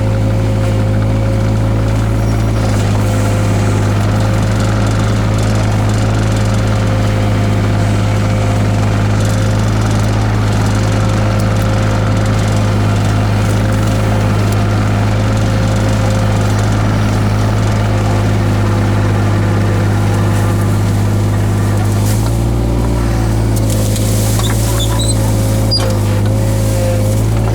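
Takeuchi TB016 mini excavator engine running steadily under load while the machine works. Its pitch shifts briefly about three-quarters of the way in, and a few faint high squeaks come near the end.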